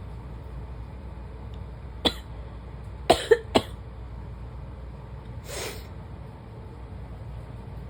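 A woman coughing: one sharp cough about two seconds in, then a quick run of three coughs, followed a couple of seconds later by a softer, longer breath-like sound.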